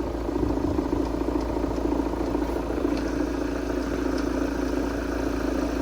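Engine idling steadily with a rapid, even knocking clatter, a knock that showed up after the flywheel was replaced.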